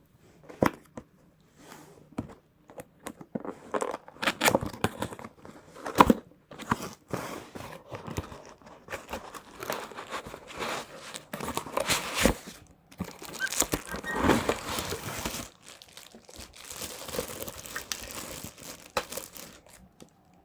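Packaging of a desk lamp being opened and unpacked: irregular crinkling and tearing of wrapping, mixed with short knocks and clicks as parts are handled and taken out.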